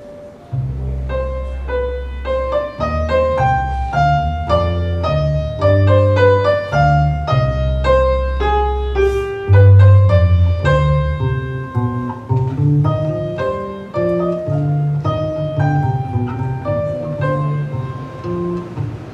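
Live baroque-style instrumental music starting about half a second in: a keyboard playing quick running notes over a low bass line held in long notes.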